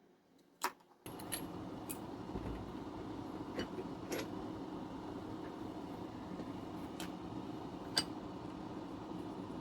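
A few sharp metallic clicks and clinks from small tools being handled at a workbench, over a steady low hum that starts abruptly about a second in.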